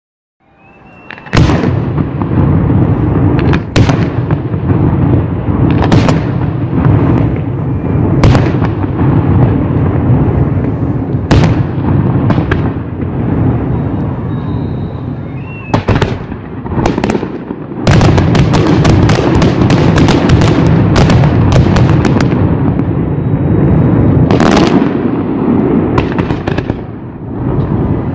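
Fireworks display: aerial shells launching and bursting, sharp bangs every second or two over a continuous rumble, starting about a second in. About two-thirds of the way through, the bangs come in a dense, rapid volley.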